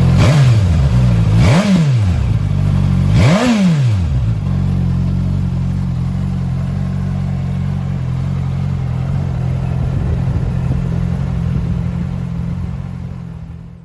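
Suzuki GSX-S1000F's inline-four engine, stationary, blipped three times in quick succession, each rev rising and falling back, then idling steadily. The sound fades out near the end.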